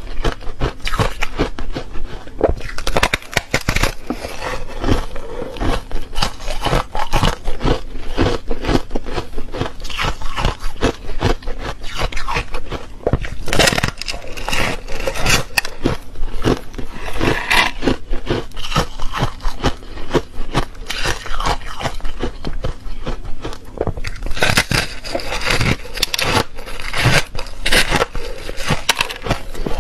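Teeth biting and crunching refrozen foam ice: a dense run of crisp crackles and scrapes, with louder crunching clusters about halfway through and again for several seconds near the end.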